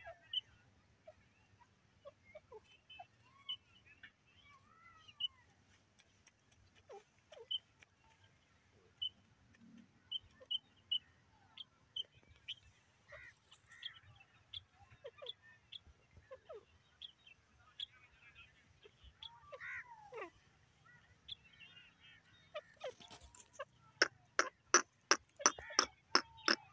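Francolins calling: scattered short chirps and falling notes, then near the end a fast, loud run of sharp calls at about four a second.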